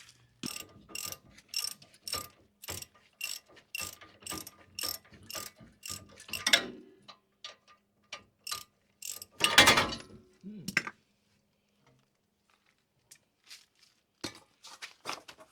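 Hand ratchet wrench clicking steadily, about three clicks a second, as a bolt is wound out of the front suspension, then stopping. A few seconds later comes one loud knock, and a few scattered clicks near the end.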